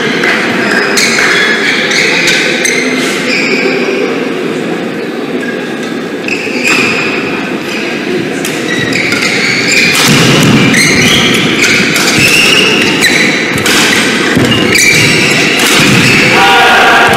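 Badminton rally in a large hall: rackets striking the shuttlecock and players' shoes squeaking and thudding on the court floor, heard as many short, sharp hits and squeaks with echo.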